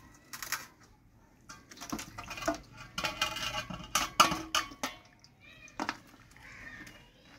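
Clay cooking pot being upturned onto a steel platter: its rim scrapes and knocks on the steel in a run of clinks and short squeaks, with the sharpest clank about four seconds in.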